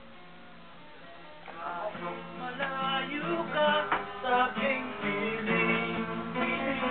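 Acoustic guitar music, starting about a second and a half in after a short quiet stretch.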